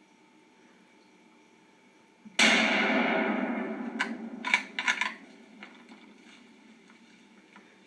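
A single shot from a 7mm-08 Ruger American rifle, a sudden loud crack about two seconds in whose echo fades over a second or so, followed by a few sharp clicks.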